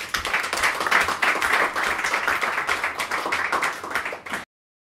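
Audience applauding, a dense patter of many people clapping, which cuts off suddenly near the end.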